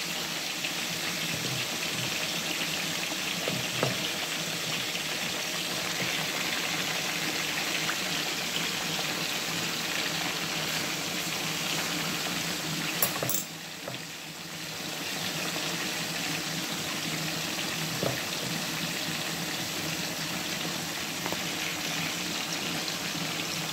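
Pork pieces deep-frying in a pan of bubbling oil: a steady sizzle that dips briefly a little past halfway.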